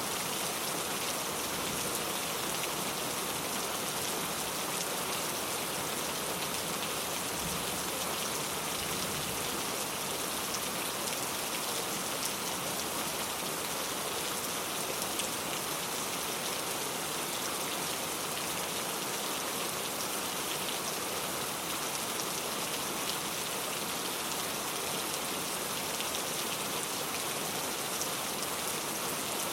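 Steady rain, an even hiss with light, scattered ticks of drops.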